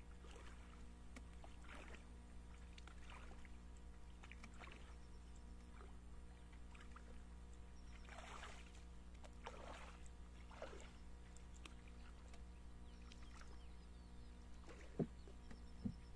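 Faint, scattered small splashes and sloshes of water, with two sharp knocks near the end.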